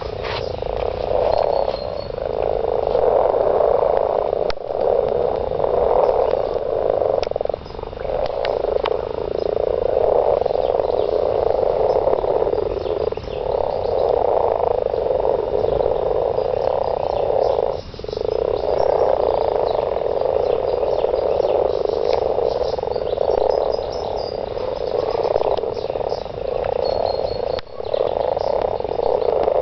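Breeding chorus of many frogs croaking at once, a continuous mass of overlapping croaks with three brief lulls.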